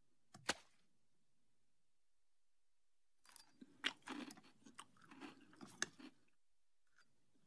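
A child chewing a mouthful of cereal in a run of irregular chews that starts about three seconds in and stops about six seconds in. A single short click comes about half a second in.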